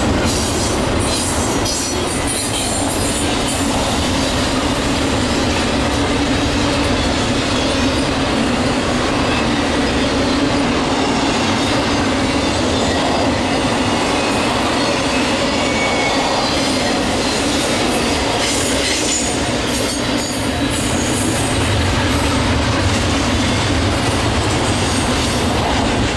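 Freight train cars rolling past: double-stack container cars and trailers on flatcars, making a steady, loud rumble and clatter of steel wheels on rail.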